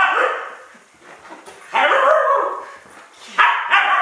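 Five-month-old Siberian husky puppy barking in play: one loud bark at the start, another about two seconds in, and two quick ones near the end.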